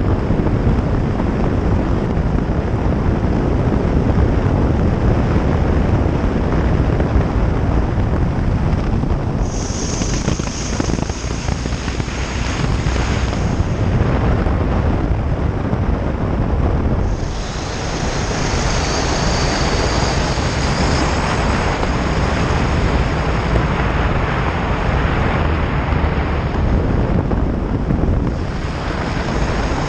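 Wind noise on a motorcycle-mounted microphone while riding a Honda Varadero V-twin along a gravel road, with the engine and tyres on gravel underneath. The noise eases briefly a few times.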